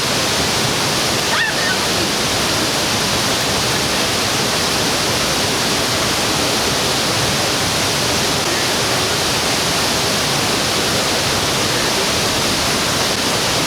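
Large waterfall pouring, a loud, steady, even rush of falling water.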